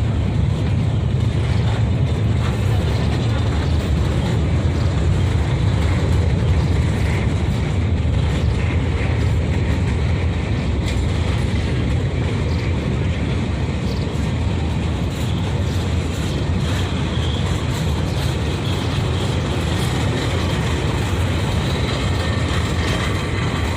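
Train running, a steady low rumble that holds level throughout.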